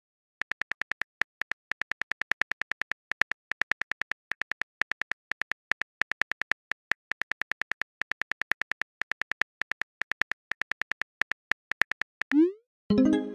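Smartphone keyboard clicks tapping out a text message: a rapid, irregular run of short sharp ticks. Near the end comes a rising whoosh as the message is sent, followed by a ringing chime.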